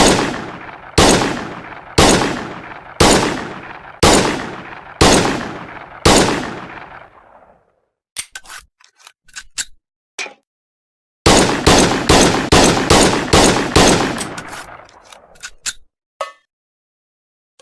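M1911 pistol firing seven single shots about a second apart, each followed by a long fading echo. After a pause with a few short sharp clicks, it fires a fast string of shots in quick succession, and a few more clicks follow.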